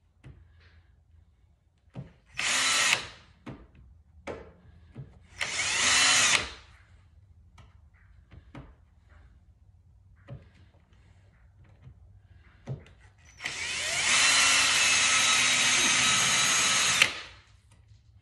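Power drill running in three bursts, two short and then one longer run of about three and a half seconds, drilling out spot welds in a car's steel body panel. Short clicks and knocks come between the bursts.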